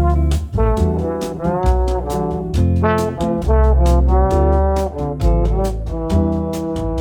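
Background music: an upbeat jazzy tune with brass playing short melodic phrases over a walking bass and a steady beat.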